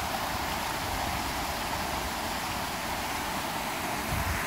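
Water rushing steadily through a trout-rearing tank, a constant even hiss.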